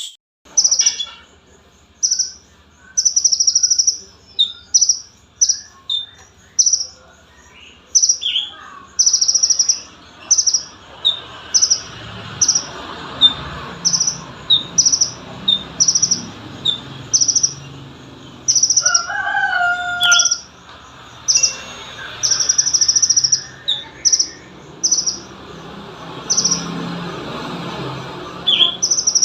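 Konin, a small sunbird, calling repeatedly: short, high-pitched chirps about once a second, some with a quick downward sweep, and a brief lower sliding call about two-thirds of the way through.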